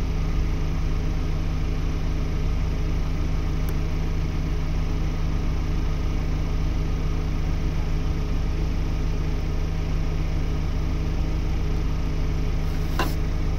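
A vehicle engine idling steadily, a low even hum, with a brief click near the end.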